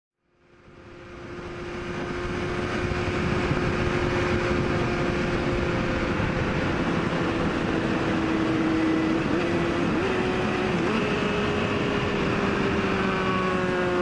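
Honda CBR sport bike engine running at steady freeway speed under heavy wind rush on a helmet-mounted mic, fading in at the start. Near the end the engine note slides gently lower as the bike slows on engine braking.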